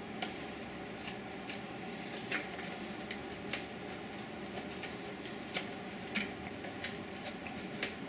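Scattered light clicks and taps as a dual-slot GeForce GTX 295 graphics card is rocked loose in its PCI Express slot inside a desktop case, over a steady background hum.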